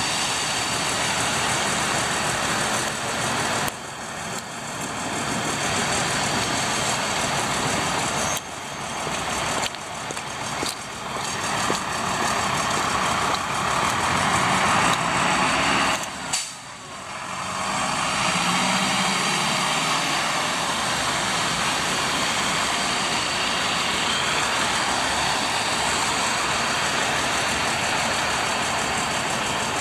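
Street traffic on a wet road: tyres hiss on the wet asphalt while truck, van and car engines run at low speed. The sound is broken by a few sudden cuts.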